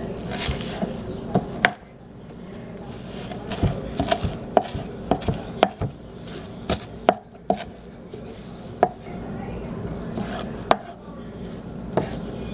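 Kitchen knife chopping fresh cilantro on a cutting board: sharp knocks of the blade hitting the board, coming unevenly in small clusters with short pauses between.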